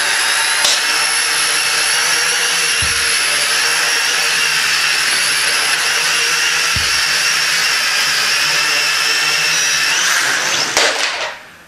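Preo CX-003 toy quadcopter's four small motors and plastic propellers running flat out as it flies: a loud, steady, high whine. The whine winds down and stops near the end.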